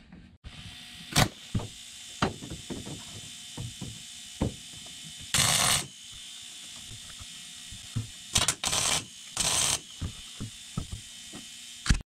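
Arc welder tacking a steel support bar in place: three short bursts of hiss, each about half a second, around five and a half, eight and a half and nine and a half seconds in. Scattered clicks and handling knocks fall between them over a steady background hum.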